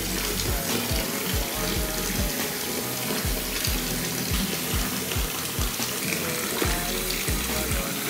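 Water from a tap pouring steadily into a filling bathtub, with a hand swishing through the water. Background music with a steady beat plays underneath.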